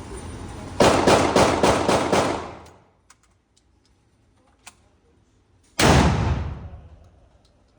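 Firearm at a shooting range firing a quick string of about six or seven shots. A few seconds later a single louder shot follows, with a long echo.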